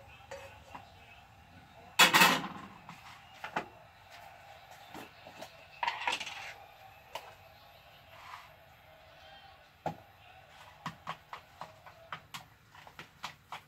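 Kitchen clatter: a loud sharp clank of a frying pan set down on a gas stove about two seconds in, further knocks and a scrape, then a run of light quick clicks of utensils near the end.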